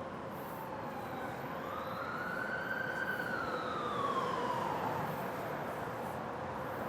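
An emergency vehicle's siren in a slow wail: one tone that rises about two seconds in, peaks near the middle and falls away again. Underneath runs a steady rumble like city traffic.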